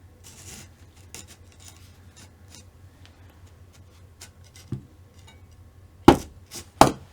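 Small hobby parts and tools handled on a workbench during RC car assembly: faint clicks and rubbing, then two sharp knocks near the end, less than a second apart.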